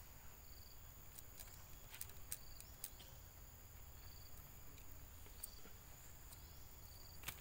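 Faint forest insect sound: a steady high drone with short high chirps repeating every second or two, and a few sharp clicks.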